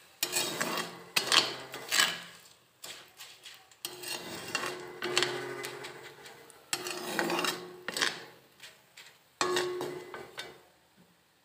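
A perforated metal frying spoon scraping and clinking against a kadhai as frying besan sev is turned in the oil, in about eight separate strokes, a few of them leaving a short metallic ring. It goes quiet near the end.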